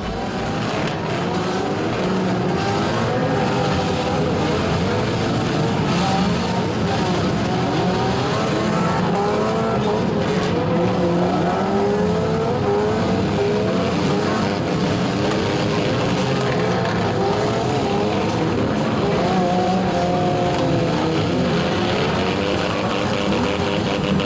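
A field of four-cylinder hatchback engines revving hard together, their pitches rising and falling over one another, with a few sharp knocks among them.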